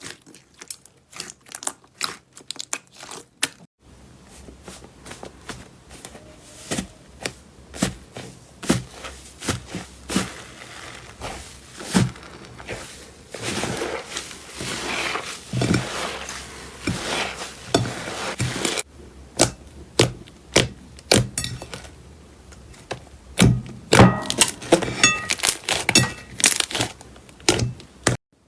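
Slime being squeezed and pressed by hand, giving a run of sharp crackling clicks and pops. The texture changes abruptly a few times.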